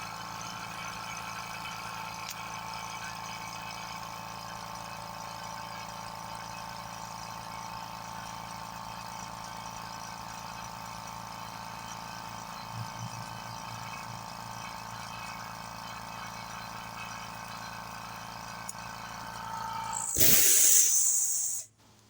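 Limodot 5-gallon oil-free quiet air compressor running steadily as it charges its tank. Near the end the pressure switch shuts it off at about 110 psi, with a loud hiss of released air lasting about a second and a half.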